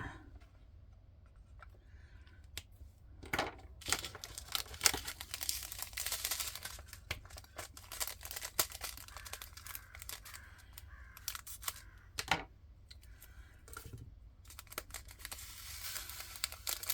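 Crinkling and tearing of small plastic packets, with quick clicks and rattles, as diamond painting drills are handled and sorted into storage.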